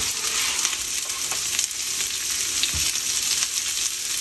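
Chopped onion and garlic sizzling in hot olive oil in a frying pan: a steady hiss with scattered small crackles.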